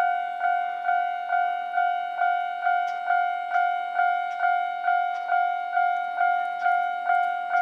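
Japanese railway level crossing warning bell ringing steadily at a little over two strikes a second. Each strike is a ringing tone that fades before the next. The bell signals an approaching train.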